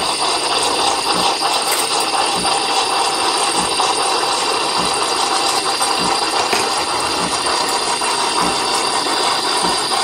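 Mr. Coffee Cafe Barista espresso maker's automatic milk frother running, a steady loud hiss and pump drone as it froths milk into the cup. A faint low pulse comes about once a second.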